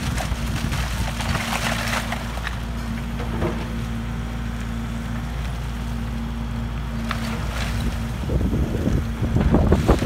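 SANY SY135C excavator's diesel engine and hydraulics running steadily under load as the bucket digs into shale. Near the end loose shale stones tumble and clatter down the slope, the loudest part.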